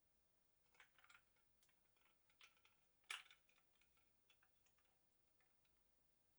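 Scattered faint clicks and taps on a GEONWORKS W1-AT mechanical keyboard, irregular rather than a typing rhythm, with one sharper click about three seconds in.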